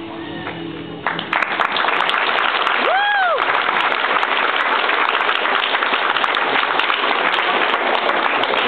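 Guitar music ends about a second in and an audience of children and adults breaks into steady clapping, with one short rising-and-falling whoop near the start of the applause.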